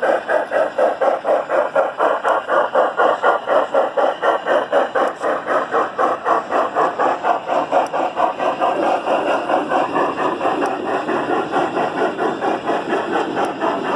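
Steam engine chuffing in an even rhythm of about four beats a second, the beats blurring into a steadier run after about nine seconds.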